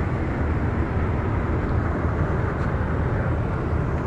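Data-centre air-conditioning condenser unit running on a rooftop: its fans and compressor give a loud, steady rushing noise with a strong low hum.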